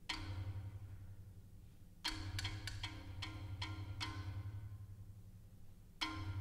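Marimbas played with mallets: ringing struck chords about every two seconds, with a quick run of repeated strokes between about two and four seconds in, over a steady low pulsing drone.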